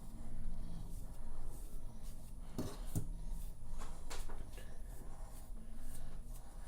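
Quiet rubbing and handling noises with several light knocks, the clearest two about two and a half and three seconds in, over a low steady hum.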